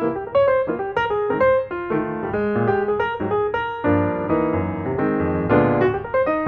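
Background music: a piano tune of quick notes over repeating bass notes.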